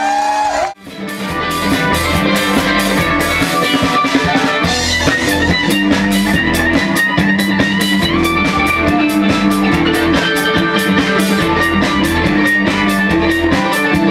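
Live band music: fiddle, guitar, upright bass and drum kit playing an upbeat tune with a steady drum beat. The sound cuts out briefly just under a second in, then the band continues.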